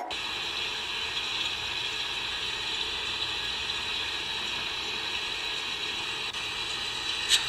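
A steady, even hissing noise from a short video playing on a phone, starting abruptly and cutting off just before the end.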